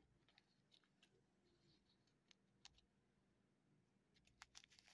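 Near silence, with faint scattered clicks and taps from handling a diamond-painting canvas and its clear plastic cover sheet. The clicks come closer together near the end.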